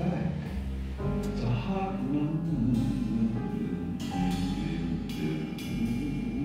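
Live jazz combo of piano, upright double bass and drum kit playing a swing tune.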